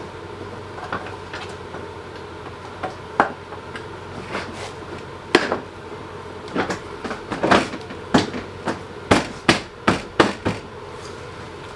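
Irregular knocks and clunks of parts being handled while a front-mount intercooler is worked into place, with a quick run of knocks about two-thirds of the way through, over a steady low hum.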